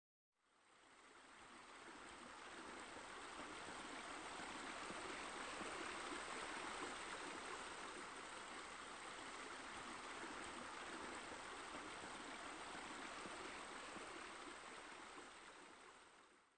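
Steady rush of water from a rock waterfall spilling into a pool, fading in at the start and fading out at the end.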